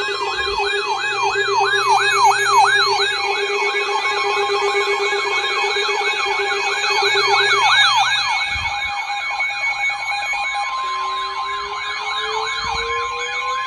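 Electronic siren tones layered together: a fast yelp sweeping up and down about two to three times a second over steady tones. Near the end a slow rising wail begins underneath.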